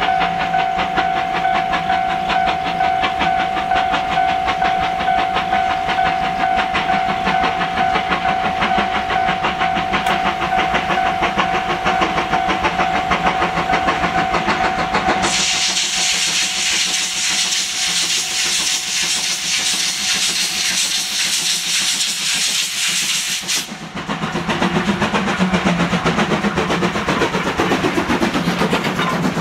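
C56 steam locomotive working toward the listener with rapid exhaust beats and a long, steady whistle that stops about halfway through. A loud hiss of steam then takes over as the engine passes close. After that the coaches roll by with a rhythmic clatter of wheels over the rail joints.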